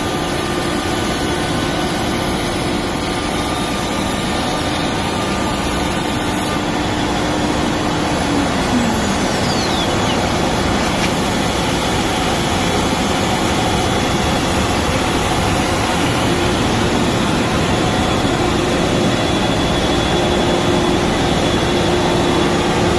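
CNC router cutting cell cast acrylic sheet, a loud steady rushing machine noise from the spindle and dust extraction. A faint whine falls in pitch about nine seconds in, and a steady hum returns later.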